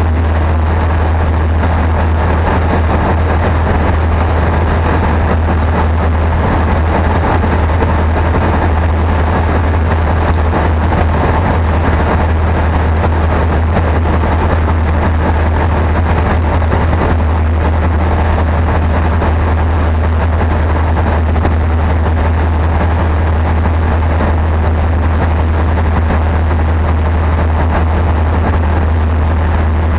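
Single-engine light aircraft's piston engine and propeller running steadily in flight, heard from inside the cockpit as a loud, even low drone.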